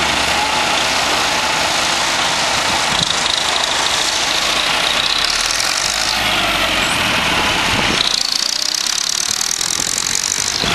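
Massey Ferguson 165 tractor engine running as it tows a loaded trailer past, under a steady hiss; the sound shifts abruptly about three and again about eight seconds in.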